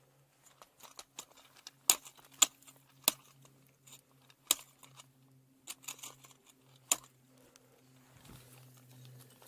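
Ice tools striking steep waterfall ice: about half a dozen sharp, irregular strikes with small metallic clinks between them as the climber places the tools.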